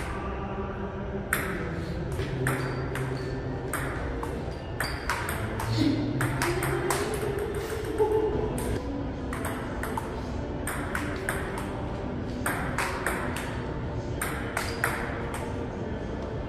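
Table tennis ball clicking back and forth off rubber paddles and the tabletop in quick rallies, a few hits a second with short breaks between points, ringing in a large hard-floored hall.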